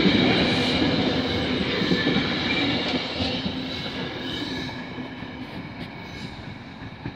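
GO Transit bilevel passenger coaches rolling past on the rails, steady wheel-on-rail noise with a thin, steady high ring, fading away as the last car passes and the train moves off.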